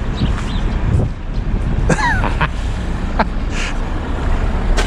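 Jacket fabric rubbing and rustling against the camera's microphone over a steady low rumble, with a brief falling squeak about two seconds in.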